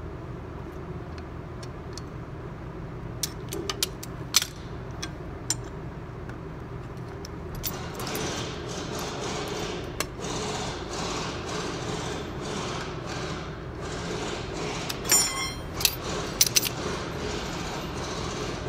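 Hand tools clinking on a shock absorber as locking pliers and a wrench work its rod nut: scattered metallic clicks, then a cluster of sharp clinks with one ringing clink late on. Under them runs a steady workshop background noise that grows a little louder about halfway through.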